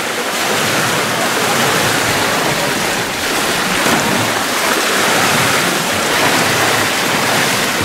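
Water splashing as swimmers and divers churn a swimming pool, heard as a steady wash of noise with a slight swell about four seconds in.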